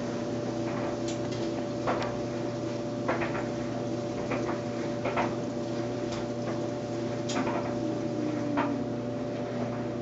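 LG WT4801CW high-efficiency top-load washing machine spinning its drum: a steady mechanical hum with scattered light knocks every second or so.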